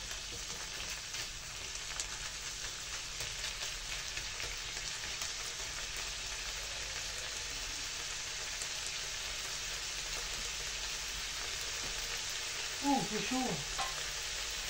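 Lardons and onion sizzling steadily in a hot nonstick frying pan, stirred with a wooden spatula.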